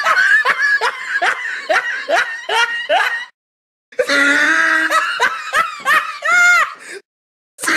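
Two separate laughs: the first a quick string of short "ha" bursts, about three or four a second, for some three seconds; after a brief silence the second runs about three seconds and ends on a drawn-out high note.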